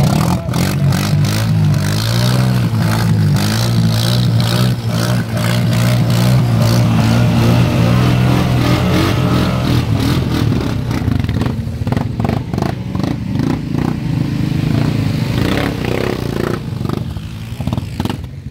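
ATV engine revving hard under load in deep mud, its pitch rising and falling as it works to push through the mud hole, with clattering and splashing from the mud. About eleven seconds in the engine eases off and becomes uneven, fading toward the end as the machine fails to make it through.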